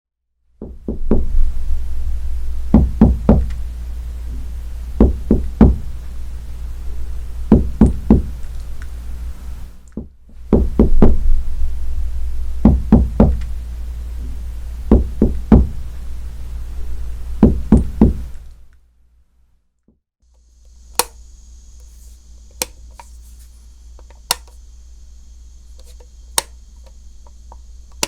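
Knocking in quick sets of three raps, repeated about every two seconds over a low rumble. Later it gives way to quieter single sharp taps about a second and a half apart.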